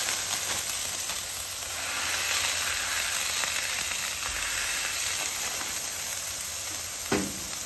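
Ground lamb patties sizzling steadily on a hot, oiled flat-top griddle while they are pressed flat with a metal burger smasher through parchment paper.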